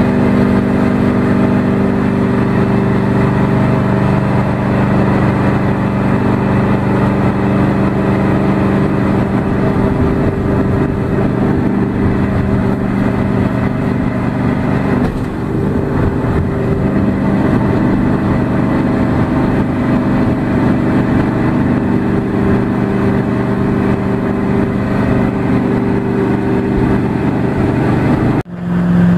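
Boat engine running steadily under way, driving an aluminum river boat upstream. The engine note eases briefly about halfway through, then settles back, and it cuts off abruptly just before the end.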